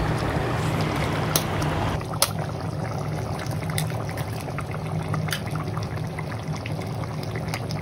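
Coconut-based egg curry bubbling at a steady boil in a metal pot, with a few sharp clicks now and then.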